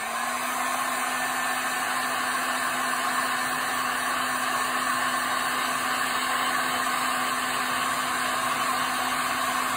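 Electric heat gun running steadily, its fan blowing hot air with a steady motor hum under the rush of air, as it heats plastic arrow vanes to straighten them.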